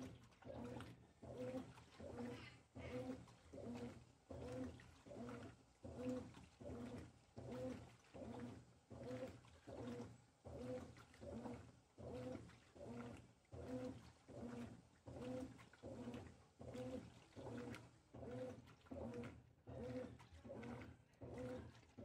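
Consul 13 kg top-load washing machine agitating a queen-size duvet on its duvet cycle: the motor hum swells and drops with each back-and-forth stroke, about three strokes every two seconds, with water sloshing in the drum.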